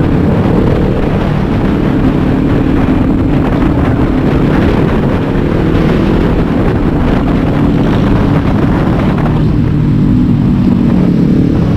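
Kawasaki Ninja 400 parallel-twin engine running on the move, with a steady hiss of wind and road noise that thins out about nine seconds in.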